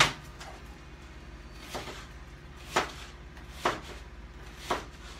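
Sharp kitchen knocks from cooking work at the counter, such as utensils or cookware set down or struck. A loud one comes at the start, a softer one just under two seconds in, then three more about a second apart, over a faint steady low hum.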